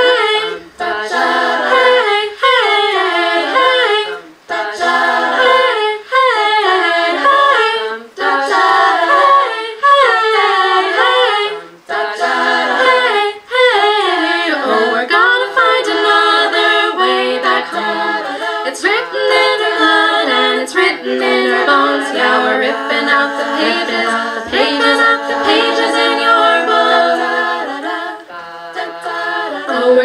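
Women's a cappella group singing in close harmony with no instruments. The first part has sliding, falling vocal phrases broken by short breaths about every four seconds, then the voices move into longer held chords.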